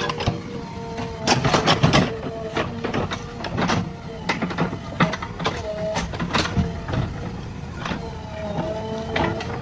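JCB 3DX backhoe loader at work: a steady engine and hydraulic whine under many sharp clanks and knocks, the clatter busiest a little over a second in.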